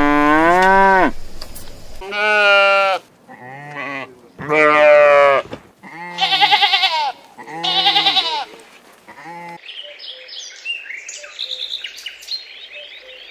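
Cattle mooing: a run of long, drawn-out calls, some with a wavering pitch. From about ten seconds in, a different high chirping sound follows.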